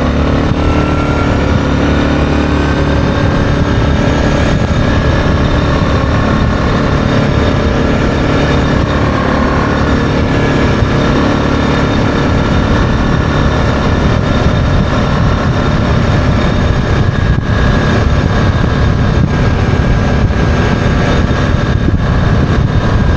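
Yamaha Grizzly 660 ATV's single-cylinder four-stroke engine running steadily at cruising speed while being ridden.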